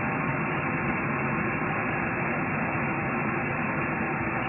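Egg-battered chicken pieces deep-frying in a pan of hot oil: a steady sizzle with small pops and crackles scattered through it.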